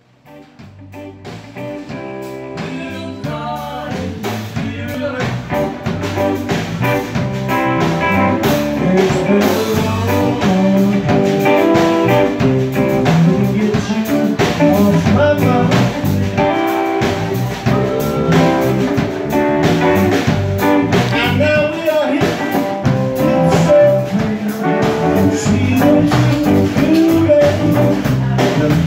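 Live blues band playing electric guitars and a drum kit, fading in over the first several seconds and then playing on at a steady level.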